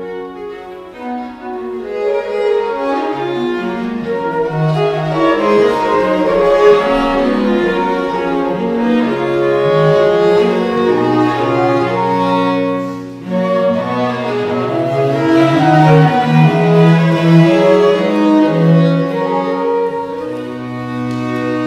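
Live chamber music from flute, violin, viola and cello playing together, the bowed strings carrying sustained notes, with a brief drop in loudness a little past halfway.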